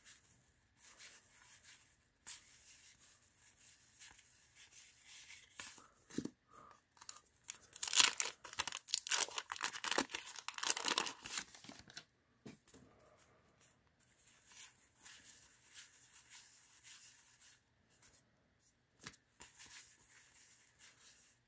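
Paper tearing and crinkling as a 1990 Fleer basketball card pack's wax wrapper is torn open and handled, loudest in a run of tearing about eight to twelve seconds in, with quieter rustling of wrapper and cards around it.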